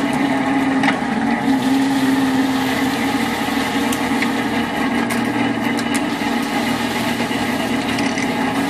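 Fishing boat's engine machinery running steadily with a low, even hum, with a few faint clicks over it.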